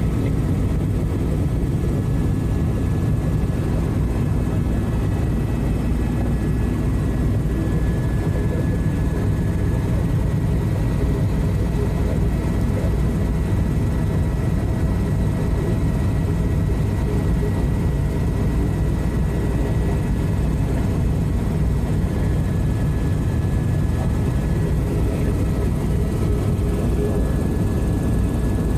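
Tour helicopter in steady cruise, heard from inside the cabin: a constant deep rotor and engine drone with a faint steady high whine over it.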